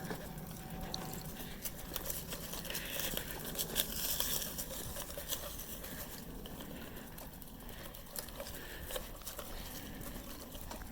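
Footsteps crunching through dry leaf litter and twigs on a woodland path: irregular crackles and rustles, busiest a couple of seconds in and thinning out in the second half.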